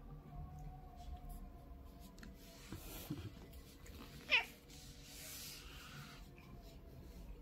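Turkish Angora cat gives one short meow about four seconds in, sliding quickly down in pitch.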